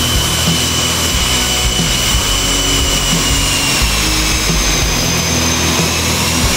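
Twin General Electric F414 turbofans of a Boeing F/A-18 Super Hornet at taxi power: a loud, steady jet rush with a high-pitched whine that drifts slightly in pitch.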